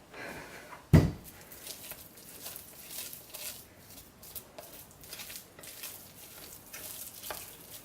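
Spatula folding and pressing thick hot process soap paste in a bowl: soft squishing and scraping with scattered small clicks. There is one sharp knock about a second in.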